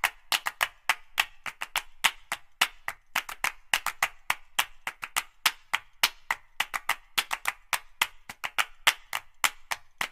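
Sharp clicks in a quick, uneven run, about five or six a second.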